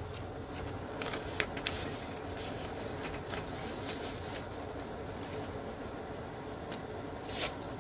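Sheets of paper being handled and shuffled, with short crackles about a second in and a louder rustle near the end, over a steady background hum.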